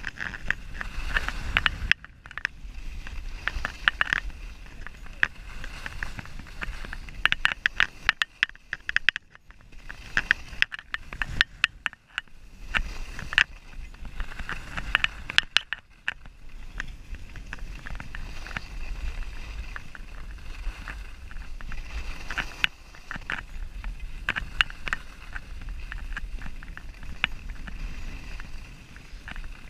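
Skis sliding and scraping over groomed, packed snow during a downhill run, with wind rumbling on the microphone and many short sharp clicks and scrapes throughout.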